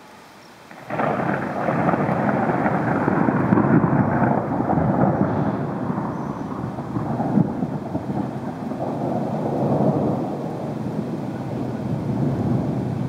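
Thunderstorm: a continuous rush of thunder and rain that comes in suddenly about a second in, then rises and falls in strength.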